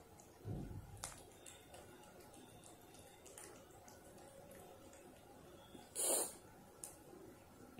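Cat licking a lickable paste treat from a squeeze tube: faint, wet, irregular licking clicks. A low thump comes about half a second in, and a short breathy puff about six seconds in.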